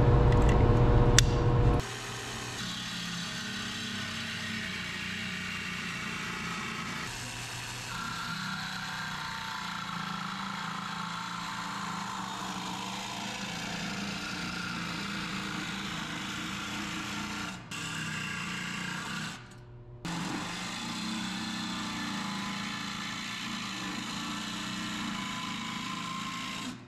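DeWalt 18V cordless jigsaw running steadily, its 14–18 TPI Bosch T118E metal blade cutting through sheet steel. The saw briefly drops off twice past the middle. About two seconds of louder handling noise come first.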